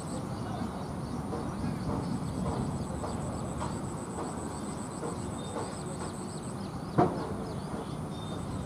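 Outdoor ambience on a cricket field between deliveries: faint distant voices over a steady background, with a single sharp knock about seven seconds in.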